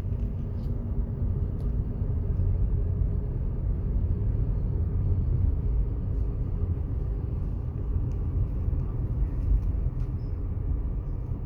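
Steady low rumble inside the cabin of a moving Tata Altroz with the windows closed: the 1.2-litre naturally aspirated three-cylinder petrol engine running, mixed with road and tyre noise.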